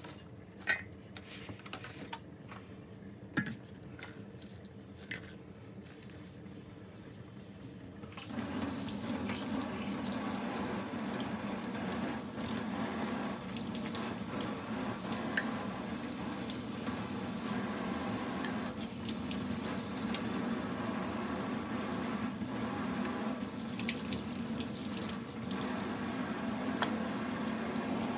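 A few light knocks and clicks, then about eight seconds in a kitchen tap turns on and water runs steadily into the sink, rinsing green onions in a stainless steel bowl.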